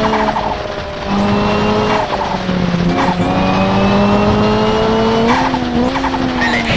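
Turbocharged Toyota Celica engine running at fairly steady revs, with the turbo fluttering in short chattering bursts a few times as the throttle lifts, and a high turbo whistle rising and falling with them.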